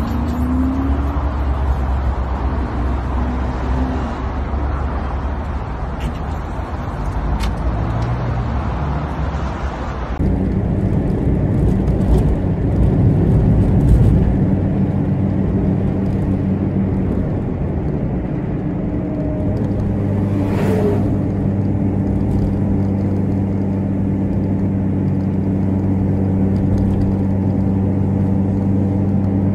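Motorway traffic noise. About ten seconds in it changes abruptly to a car's engine running steadily with road noise, heard from inside the cabin as it drives.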